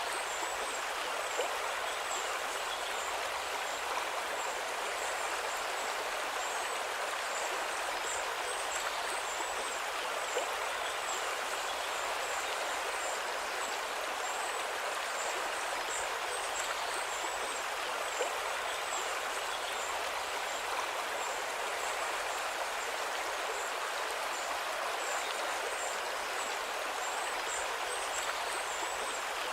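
River water flowing steadily over stones, an even rushing sound, with faint high-pitched chirping repeated throughout.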